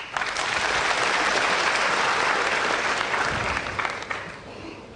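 Audience clapping for a potted ball in a snooker match. The applause starts at once, holds steady for about three seconds, then dies away near the end.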